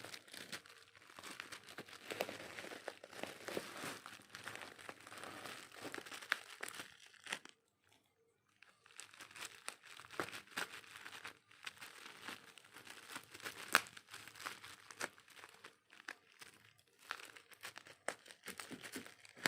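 Packaging crinkling and rustling as it is handled and opened, with many small sharp crackles and taps, and a short pause about eight seconds in.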